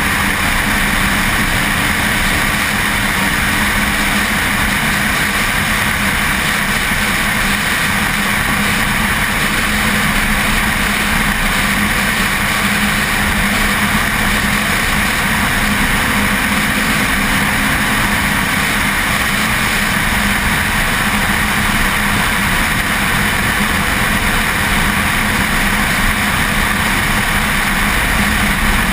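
Steady engine and road noise of a car driving at speed on a race track, picked up by a camera mounted outside on the car's rear, with no sharp changes in revs.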